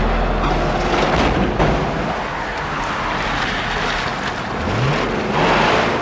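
Car driving fast through shallow water, with a steady rush of spray and tyre noise. The engine rises in pitch twice near the end as it revs.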